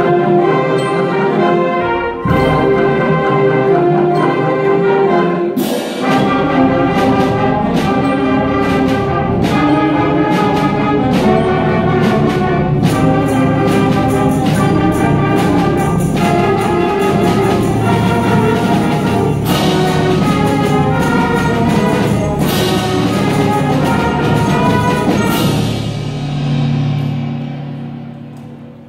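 Youth concert band of woodwinds, brass and percussion playing loudly, with regular percussion strokes. Near the end it closes on a low held chord that fades out.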